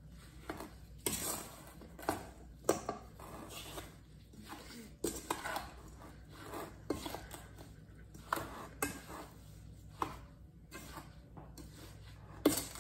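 Red silicone spatula stirring a chopped rhubarb, sugar and flour mixture in a stainless steel bowl, with irregular scrapes and knocks against the bowl, a sharper knock near the end.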